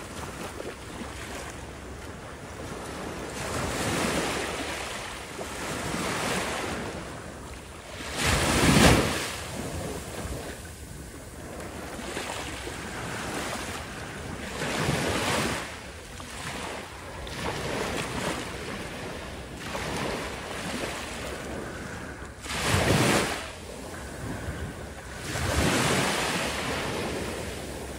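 Small waves lapping and washing at the water's edge, with wind buffeting the microphone. The sound swells and fades every few seconds, strongest about a third of the way in and again near the end.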